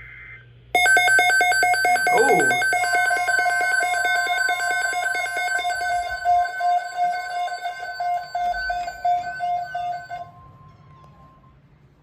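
A NOAA weather radio receiver's alarm sounding a loud, rapid pulsed beeping for about nine seconds, then cutting off. A fainter steady tone runs underneath from about two seconds in. The alarm going off is the sign that the severe thunderstorm watch covers the listener's own programmed county.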